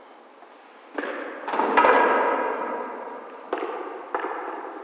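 A series of five sharp knocks, the loudest about two seconds in, each trailing off in a ringing decay.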